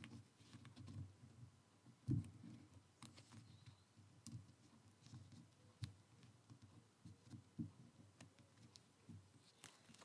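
Faint handling of card: soft taps, slides and rustles as cardstock pieces are laid and pressed onto a glass craft mat, with a slightly louder knock about two seconds in.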